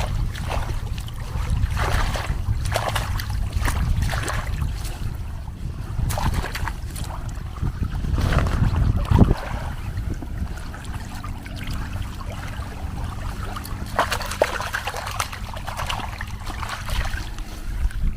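Water trickling and splashing irregularly as freshly dug wild onions are rinsed to wash the soil off, over a low wind rumble on the microphone. A faint steady hum comes in about two-thirds of the way through.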